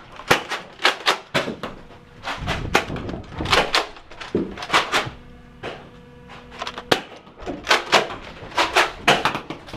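A quick, irregular run of sharp knocks and clatters in clusters of two or three, typical of hurried movement and gear handling during a Nerf blaster fight.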